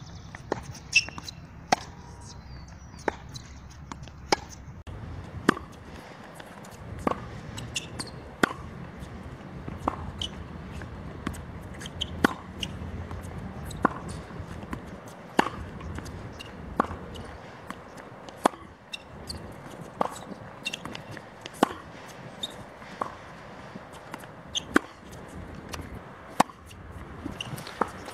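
Tennis rally on a hard court: rackets striking the ball and the ball bouncing, a sharp pop about once a second, some louder and some fainter.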